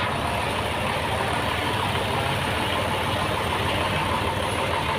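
Band sawmill machinery running steadily: a continuous, even engine-like drone.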